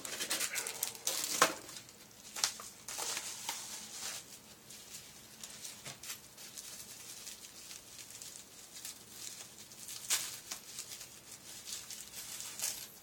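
Plastic packaging crinkling and rustling in the hands in irregular bursts, sharpest about a second and a half in, around ten seconds in and near the end, as a small item is taken out of its wrapping.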